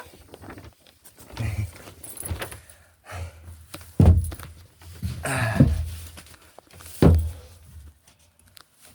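A series of separate thumps and clinks, about five spread out with gaps between them, with some jangling, like a person moving about and handling gear.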